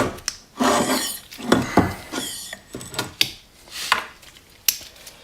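Metal motorcycle fork parts being handled: a sharp knock, then a series of short scrapes and rubs, and a sharp click near the end.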